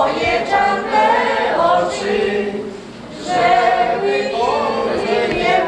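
A group of people singing together without instruments, a song sung in chorus at the table, with a short break between lines a little before halfway through.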